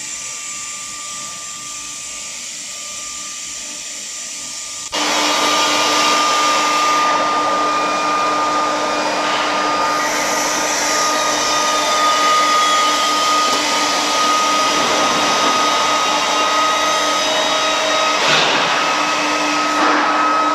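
Medium-frequency induction heating furnace running under power: a steady hiss with a steady high whine and a lower hum. It steps up suddenly louder about five seconds in.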